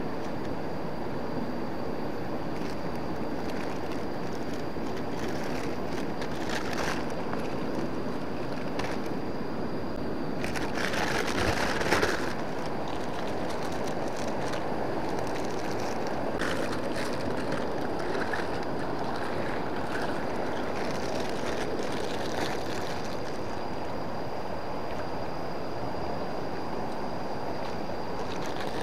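River swollen with floodwater, rushing steadily, with a brief louder surge of noise about eleven seconds in.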